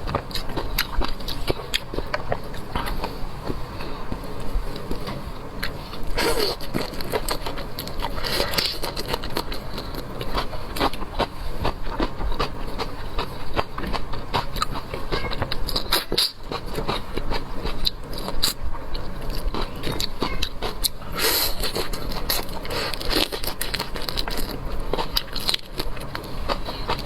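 Chewing and biting of shrimp: an irregular, continuous run of crackles and clicks, with a few louder crunches.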